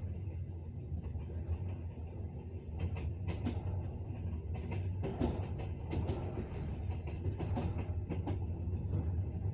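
Train wheels clacking over rail joints above the steady low rumble of a moving train; a run of sharp clicks comes from about three seconds in until near the end.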